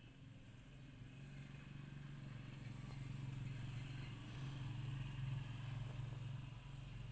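A motor vehicle passing by: a low engine hum that grows louder to a peak about five seconds in, then starts to fade.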